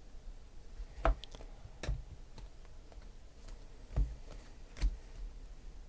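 Stiff chromium Panini Prizm football cards handled in a stack and moved one by one from front to back: four sharp clicks with a few fainter ticks between them as the cards snap and slide against each other.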